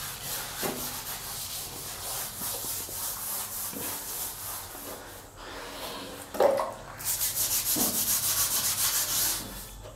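Rapid hand scrubbing on a glazed ceramic squat-toilet pan and floor tiles, working a hard stain remover into the stains with quick back-and-forth rubbing strokes. A short thump comes a little after six seconds. The strokes turn faster and louder for the last few seconds.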